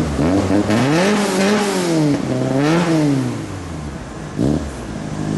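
VW Golf GTI Mk1 engine revved twice in quick succession from idle, each rev rising and falling back, then a short quick blip near the end before it settles to idle.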